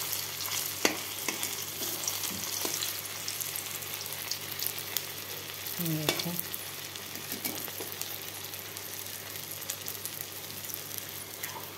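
Slices of rolled colocasia-leaf fritter shallow-frying in refined oil in a kadhai: a steady sizzle with scattered sharp crackles. A spatula stirs and scrapes as the pieces are turned to brown them.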